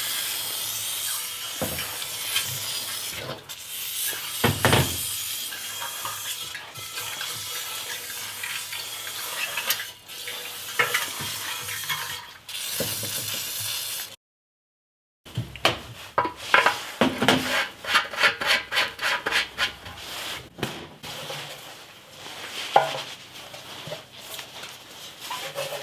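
Compressed air hissing steadily as it is blown into a motorcycle fuel tank to dry it out, with a few clicks. After a cut, a run of quick rattling knocks, several a second, follows as the tank is handled.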